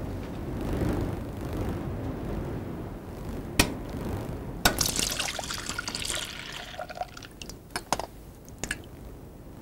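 A sharp click as a stove knob is turned, then a couple of seconds of water splashing, and a few light metal clinks near the end as a spoon lowers an egg into a pot of water.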